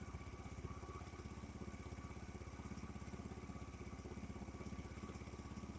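Small 50cc GY6-type scooter engine, a single-cylinder four-stroke, idling steadily with a rapid, even putter while it warms up.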